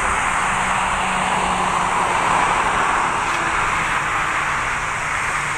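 Jet airliner engines, a steady loud rushing noise with a faint low hum underneath.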